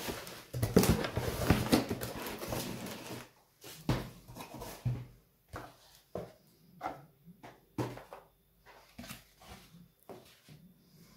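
Packaging being handled: a few seconds of continuous rustling and clatter, then scattered short rustles and light knocks.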